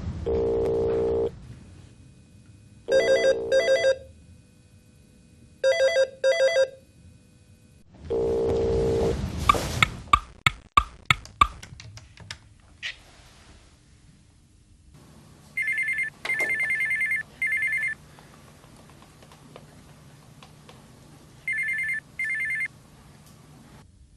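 Telephones ringing: an electronic ring in short double pulses, heard twice, then a burst of sharp clicks, then a higher trilling ring in short bursts, heard twice.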